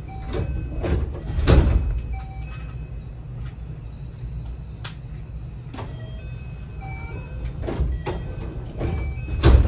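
Inside a standing JR West 223 series 2000 electric train car: a steady low hum, with two heavy thumps, one about a second and a half in and one near the end, lighter knocks between them, and scattered short tones at different pitches.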